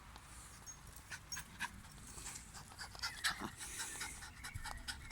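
Young dog panting hard, with scattered short clicks.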